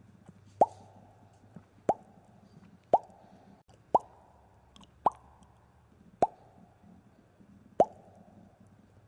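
Bubble pops, each a sharp click with a quick upward 'bloop', coming about once a second, seven in all.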